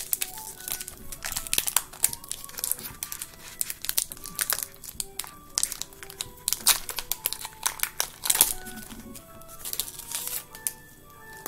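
Foil Pokémon booster pack wrapper crinkling and crackling as it is handled and torn open, over light background music with short melodic notes.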